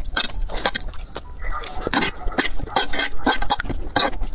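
Close-miked eating sounds: rapid chewing and slurping of noodles, a dense run of short sounds with occasional utensil clinks against a dish.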